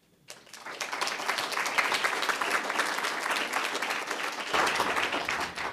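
Audience applauding, many people clapping together; it starts just after the beginning and dies away near the end.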